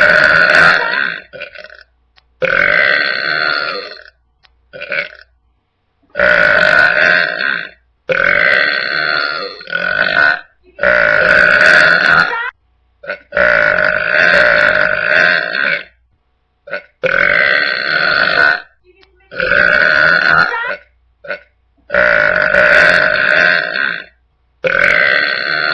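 A person burping loudly over and over: long, drawn-out burps about every two seconds, with a few short ones in between.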